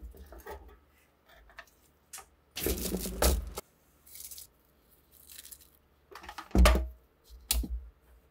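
Small metal rifle parts clink against a wire basket, then aluminium foil is torn and crinkled loudly for about a second as it is wrapped around a rusty steel rifle part, with softer crinkles after. Near the end come a loud knock and a sharp click.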